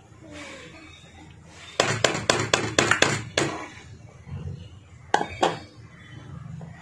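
Kitchen utensils clinking as a thick vegetable paste is knocked off a dish into a cooking pot: a quick run of about eight sharp clinks about two seconds in, then two more a couple of seconds later.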